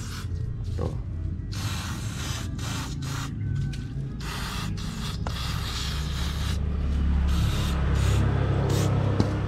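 Aerosol chain cleaner sprayed onto a motorcycle drive chain in several short bursts of hiss with brief pauses between them.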